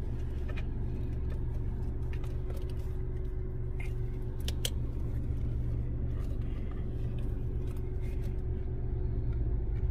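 Steady low rumble inside a car cabin, with scattered sharp plastic clicks and rattles as a phone holder clamp is handled and snapped into place. The two loudest clicks come about four and four and a half seconds in.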